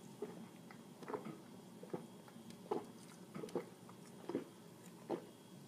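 A man gulping down a glass of beer in one go, with a soft swallow about once a second.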